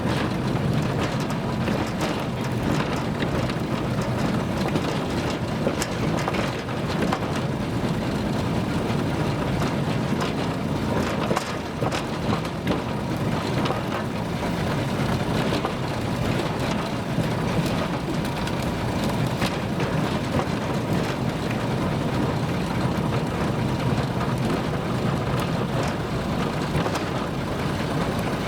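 Narrow-gauge forest railway train running: a steady low rumble with constant rattling and small clicks from the wheels and cars.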